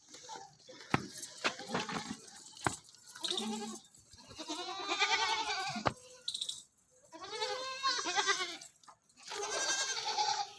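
Goats bleating, several long quavering calls one after another from more than one animal, with a few sharp clicks in the first seconds.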